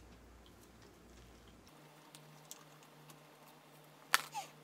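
A bite into a McDonald's chicken nugget and quiet chewing, with faint scattered mouth clicks. A sharper crackle about four seconds in is the loudest sound.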